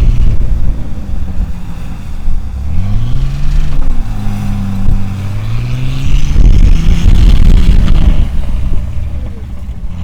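Off-road SUV engine revving up and holding revs as it pushes through snow, under a heavy, gusting rumble of strong wind on the microphone.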